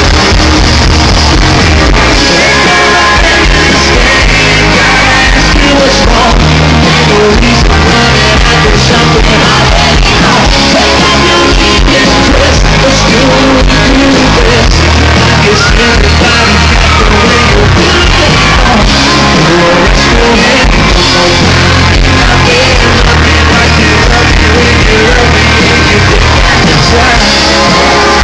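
Live country band playing loud, with singing and shouted voices over the music, heard through a fan's recording in the audience.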